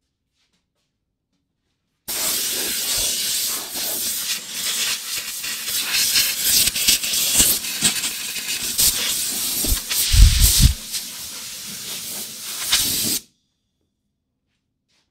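A pressurised jet hissing in uneven spells. It starts abruptly about two seconds in and cuts off suddenly near the end, with a few low thumps about ten seconds in.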